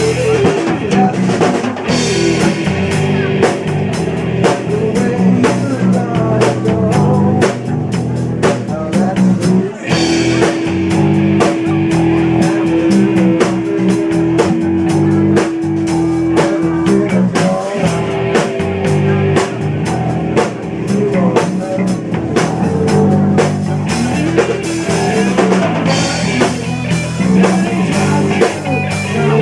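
Rock band playing live without vocals: drum kit keeping a steady beat under bass and electric guitar, with one long held note about a third of the way through.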